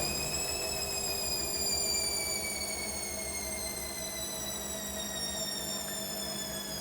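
Hoover 8 kg washing machine running with a steady high-pitched motor whine that rises slightly at first and then slowly drifts down in pitch, over a low hum.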